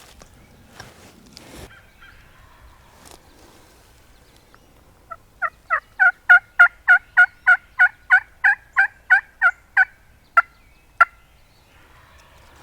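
A long, loud run of turkey yelps, about three a second for some five seconds and growing louder at first, followed by two single yelps.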